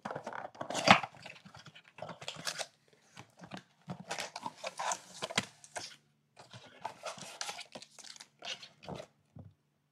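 Plastic wrap crinkling and tearing in short, irregular bursts as a sealed box of baseball cards is unwrapped and opened.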